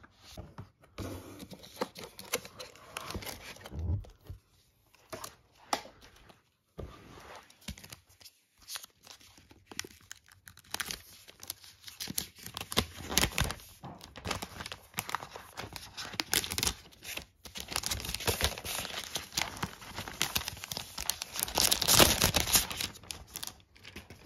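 Thin protective paper wrap being peeled off a new Apple Magic Keyboard and crumpled, rustling and crinkling in irregular bursts. Sparse handling rustles at first; the rustling grows denser and louder over the second half and is loudest near the end.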